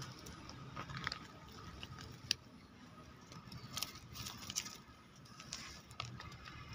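Irregular light crackling and clicking of dry leaves, twigs and gravel being disturbed, with a few sharper clicks, one a little over two seconds in and a cluster near four seconds.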